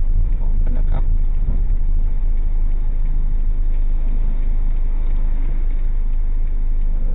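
Steady low rumble of a car driving along the road: engine and road noise heard from inside the cabin through a dashcam's microphone.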